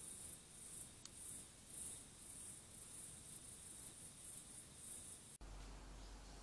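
Faint night insect chirping, a high-pitched cricket-like trill in even pulses about twice a second. It cuts off abruptly about five seconds in, giving way to a low steady hum.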